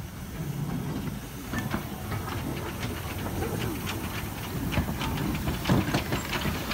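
Small steam tank locomotive No. 1310 moving slowly past at close range: a steady hiss of steam over a low rumble, with frequent metallic clanks and clicks that begin about a second and a half in.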